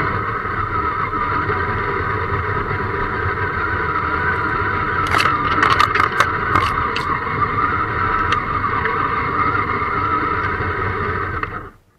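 Electric motor and gears of an RC scale crawler running steadily under throttle, picked up by a camera mounted on the truck. There is a cluster of sharp clicks and scrapes around the middle as branches hit the body, and the motor cuts off abruptly near the end.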